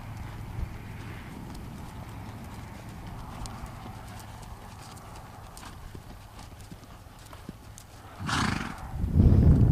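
Horse's hooves in a sand arena: soft, scattered footfalls of a ridden gelding at a walk and trot. Near the end there is a short loud burst, and then a loud low rumble sets in.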